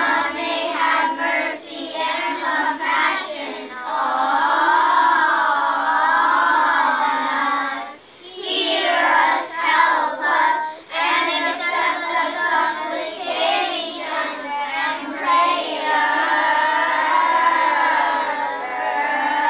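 A group of young children singing a church hymn together, with a short pause for breath about eight seconds in.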